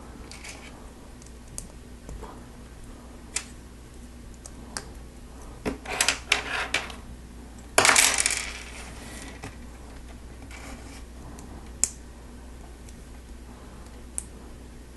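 Plastic Lego Technic pieces clicking and clattering as they are handled and pushed together, in scattered sharp clicks with a louder clatter about eight seconds in.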